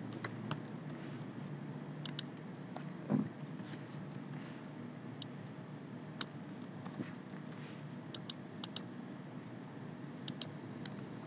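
Scattered sharp clicks of a computer mouse and keyboard, a dozen or so, some in quick pairs, over a steady low hum. A dull thump about three seconds in is the loudest sound.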